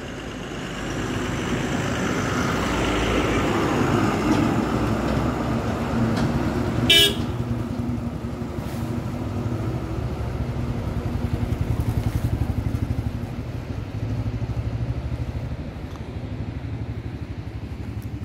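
Engine and road noise of a vehicle being driven, steady throughout. A short horn toot sounds about seven seconds in.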